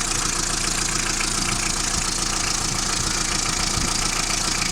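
Hindustan Motors Isuzu engine idling steadily.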